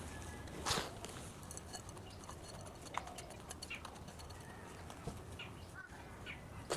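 Soft rustling and clicking of potting soil scooped by hand and dropped into a terracotta pot, with one brief rustle about a second in standing out. Birds chirp faintly now and then in the background.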